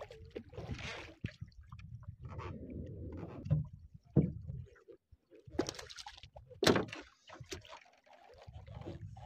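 Low rumble of wind on the microphone and water slopping against a small wooden boat, with several sharp knocks and clicks, the loudest about four and about six and a half seconds in, as a hooked fishing longline is hauled aboard by hand.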